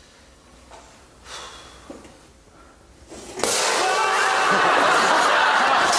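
A couple of faint knocks, then about three and a half seconds in a booby-trapped desk's smoke blaster goes off: a sudden, loud, steady rushing hiss as a cloud of white smoke pours out.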